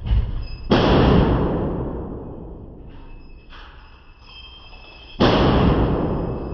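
Two loud gunshots from a Bear Creek Arsenal AR-15 with a 10.5-inch barrel in 5.56, about 0.7 s in and about four and a half seconds later. Each rings out for more than a second in the indoor range. A lighter, sharp bang comes right at the start.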